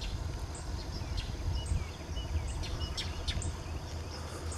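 Birds chirping in short, high calls scattered throughout, over a steady low rumble of wind on the microphone.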